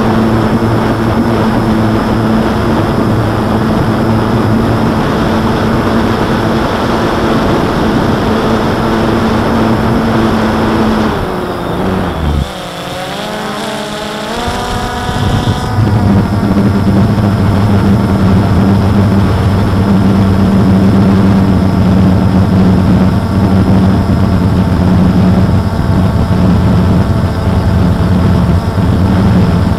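DJI Phantom 2 quadcopter's motors and propellers droning steadily, heard close up from the camera it carries. About twelve seconds in the hum drops away and wavers up and down in pitch for a few seconds, then settles back to a steady drone.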